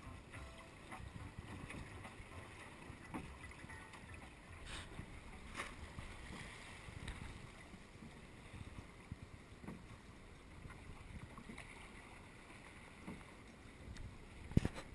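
Water rushing and splashing along the hull of a small BayRaider sailing boat running downwind in a following sea. A few light knocks sound from the boat, with a sharper knock near the end.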